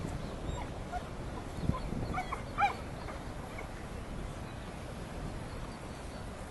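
A few short bird calls about two seconds in, over a steady low rumble of background noise, with a single low thump just before them.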